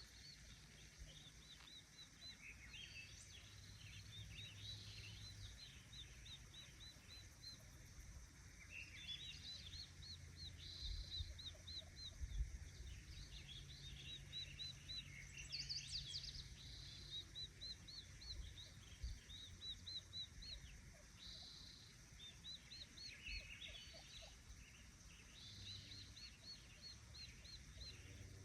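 Faint birdsong: several songbirds chirping and trilling in quick repeated notes, overlapping one another, with a faint low hum coming and going underneath.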